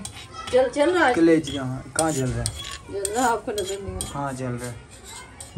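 Steel cooking pots and a pan clinking and scraping as they are shifted on a gas stove, with several sharp clinks, over a wavering pitched sound that rises and falls.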